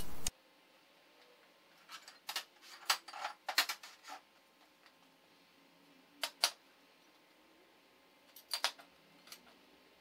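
Steel brackets and tools handled on a steel welding table: scattered light metal clinks and taps, a cluster a couple of seconds in, two more about six seconds in, and a few near the end.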